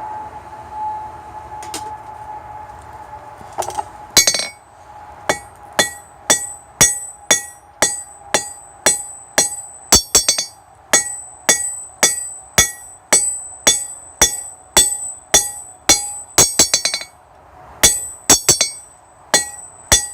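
Hand hammer striking a hot titanium rod on an anvil, about one and a half blows a second with a bright ring on each, now and then a quick cluster of taps. The blows start about four seconds in; before that and underneath there is a steady hum.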